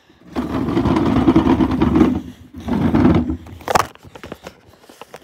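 A patio table dragged across a tiled floor, scraping in two long pushes, then a single knock.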